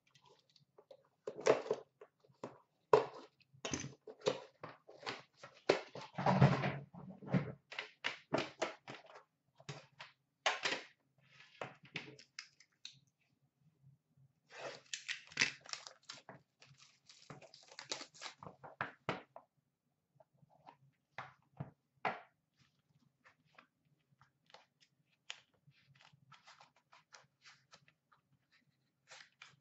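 A trading-card tin and the cardboard box inside it being handled and opened on a glass counter: a run of irregular clicks, taps and light knocks, with a heavier thunk about six seconds in.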